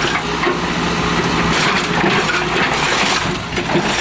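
Magnesium Lawn-Boy mower deck being crushed under a backhoe bucket, cracking and crunching irregularly over the steady running of the 1974 Case 580B backhoe's engine.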